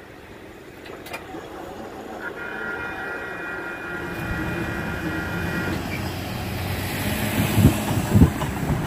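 Cars driving over the rails at a railroad grade crossing, with a low rumble building and two sharp thumps of tyres hitting the rails near the end. A steady horn chord sounds for about three seconds in the middle.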